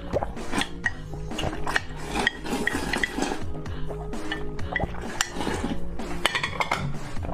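Noodles slurped from a ceramic bowl with chopsticks clicking against its rim, over background music. About six seconds in, a cluster of clinks as the emptied bowl is lowered to the table.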